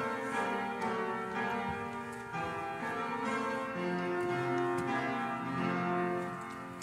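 Church organ playing slow, sustained chords, the notes held steady and changing every second or so, with a bell-like tone.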